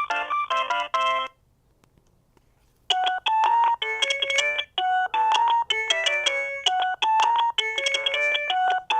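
Ringtones of an Alcatel OT-E159a mobile phone playing through its speaker. One electronic melody cuts off about a second in. After a short silence another begins about three seconds in: a quick run of short, bright notes with several sounding together.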